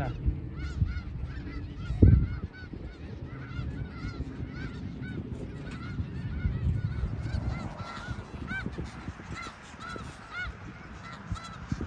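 A large flock of snow geese calling, many short overlapping honks several times a second. Underneath is a low rumble, with one loud thump about two seconds in.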